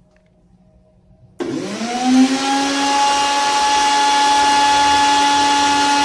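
Inalsa mixer grinder's electric motor switched on, starting suddenly about a second and a half in and spinning up with a rising whine, then running steadily at full speed with no jar fitted.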